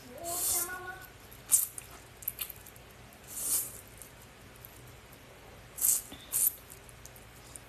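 Close-miked eating sounds: sharp wet mouth clicks and several short hissing bursts of chewing. A brief rising voiced sound comes at the very start.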